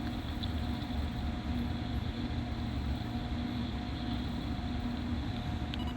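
Low, steady rumbling with a faint pulsing hum over it, heard as a strange rhythmic drumming of unknown origin.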